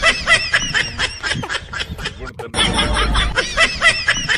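Rapid, high-pitched giggling laughter in quick bursts, about six a second. It breaks off briefly about two and a half seconds in, then starts again.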